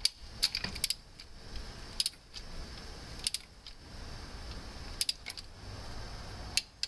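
Torque wrench ratcheting a cylinder head bolt down on the first tightening pass to 44 ft-lb, in short bursts of sharp metallic clicks about every second or so.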